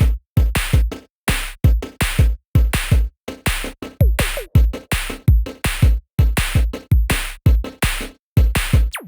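Electronic music with a fast, punchy drum-machine beat of about three hits a second, each hit cut off sharply, with a couple of short falling pitch sweeps.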